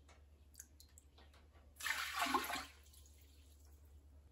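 Whey sloshing as a glass measuring cup is dipped into a stockpot of cut curds and whey to bail out the excess whey: one burst of splashing just under a second long, about two seconds in.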